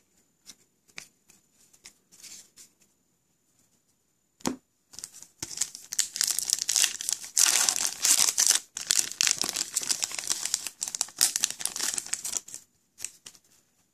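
A foil trading-card pack wrapper crinkling and tearing as it is ripped open and handled, starting about five seconds in.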